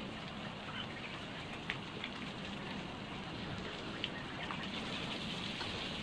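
Food sizzling on a barbecue grill: a steady hiss with a few short crackles and pops.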